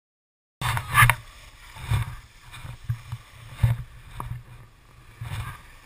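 Wind buffeting a GoPro Hero HD's microphone in uneven gusts, with the hiss of skis or a snowboard sliding over packed snow; it cuts in about half a second in.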